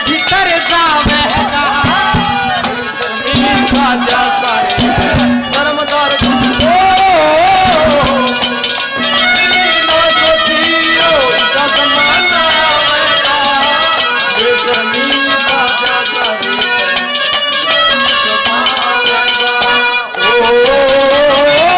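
Haryanvi ragni folk music: a melody that bends and slides up and down over drumming, with the drum strokes thickest in the first eight seconds or so.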